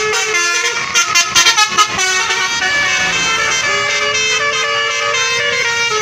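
Bus basuri horn, a multi-tone musical 'telolet' air horn, playing a tune of changing notes. About a second in it gives a run of quick short blasts, then near the end it holds one long note that rises slightly.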